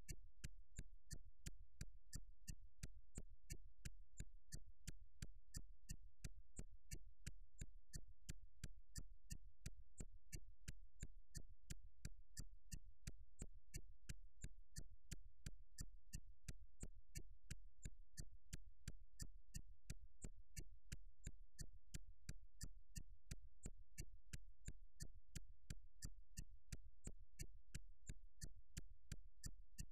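Faint low hum with sharp, evenly spaced clicks, about three a second.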